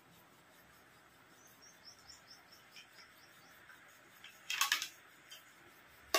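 Quiet eating by hand at a table: faint small clicks, then a short burst of clattering about four and a half seconds in and a sharp click near the end as a plate is handled.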